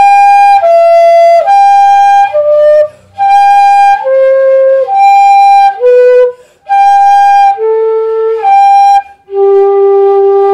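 Pífano (bamboo fife) in G playing a widening-interval exercise on the way down, one note per beat: the high G alternates with each lower note in turn (E, D, C, B, A). It ends on a long low G an octave below.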